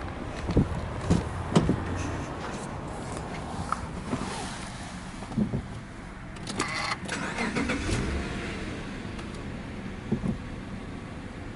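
A few door clunks and clicks, then the Subaru Legacy B4 3.0R's flat-six is cranked over by the starter about six and a half seconds in, catches with a brief swell and settles into a steady idle.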